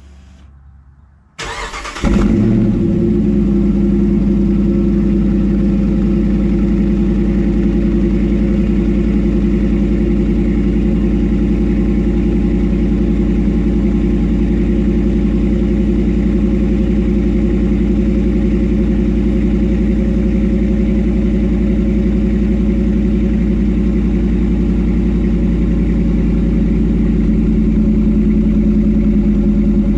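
2009 Dodge Ram 1500's 5.7-litre Hemi V8 cold-started: the starter cranks briefly about a second and a half in, the engine catches, and it then idles steadily through the dual exhaust tips.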